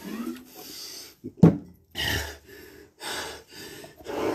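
A man breathing hard and gasping, winded from exercise, as he drinks water: a loud sharp gasp about a second and a half in, then heavy breaths about once a second.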